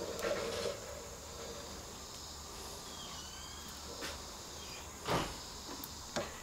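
Light clicks and scrapes of a piston ring being spread and worked into its groove on a piston by hand, the loudest click about five seconds in. A steady high-pitched background hum runs underneath.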